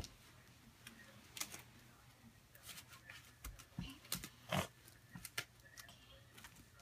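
Scattered soft rustles and clicks of hands handling a Baby Alive doll and its diaper, over a faint steady low hum.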